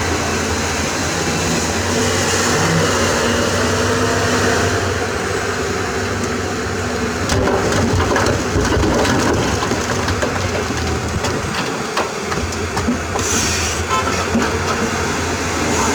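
Heavy diesel engine of a large excavator running steadily, with irregular knocks and rattles from about halfway through.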